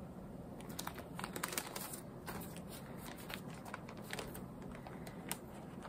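Clear plastic sheet protectors in a binder crinkling and rustling as the pages are handled and turned, in quiet, irregular crackles and clicks.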